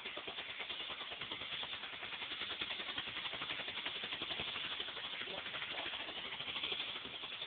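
Ground fountain firework spraying sparks: a dense, continuous crackle with hiss.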